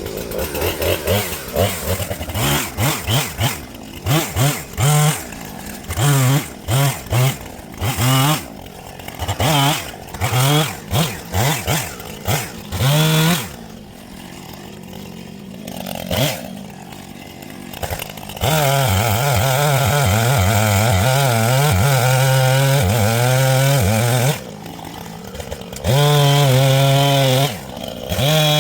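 Husqvarna Rancher 455 two-stroke chainsaw revved in a quick string of short throttle blips, then held at full throttle for several seconds at a time with a wavering pitch as it cuts into a dead ash trunk, dropping back briefly before revving up again near the end.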